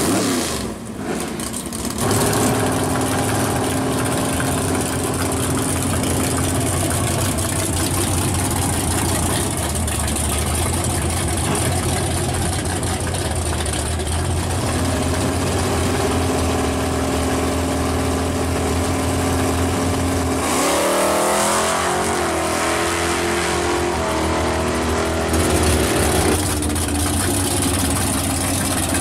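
1986 Chevrolet Monte Carlo SS pro street drag car's engine idling through its exhaust, with a quick series of throttle revs about twenty seconds in before it settles back to a steady idle.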